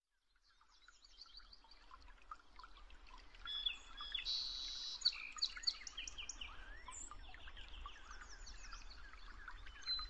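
A chorus of songbirds chirping, trilling and whistling, several birds overlapping, fading in from silence over the first few seconds.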